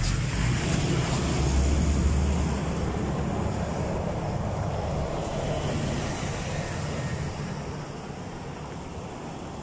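Road traffic: a truck passing close by, its engine rumble loudest about two seconds in and then fading away.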